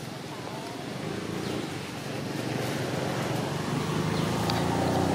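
An engine running with a steady low hum, slowly getting louder.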